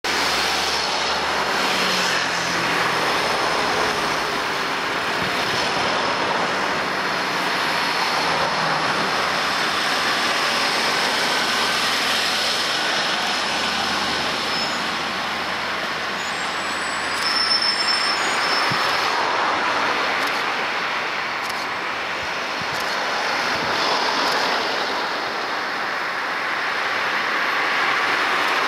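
Road traffic driving past: cars, vans and a double-decker bus, their engine and tyre noise swelling and fading as each goes by. A brief high squeal comes a little past halfway.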